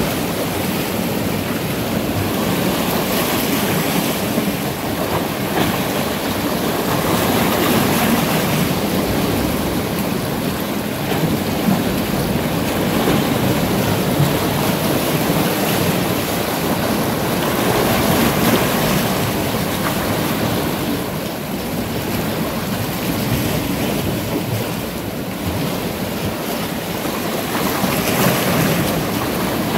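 Sea surf washing and breaking against large boulders on a rocky shore, a steady rush of water that swells and eases every ten seconds or so.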